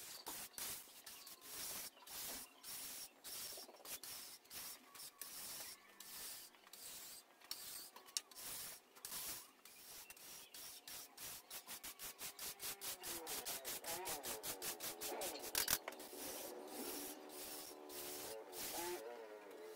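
A flat metal blade scraping and smearing a thick dark liquid finish across a wooden tabletop in repeated strokes. The strokes quicken to about four a second in the second half.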